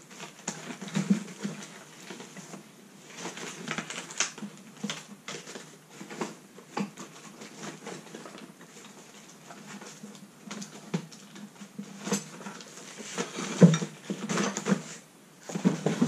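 Rummaging through a wooden workbench drawer full of tools and packaged items: irregular clatter and clicks of objects being shifted and handled, with a louder knock near the end.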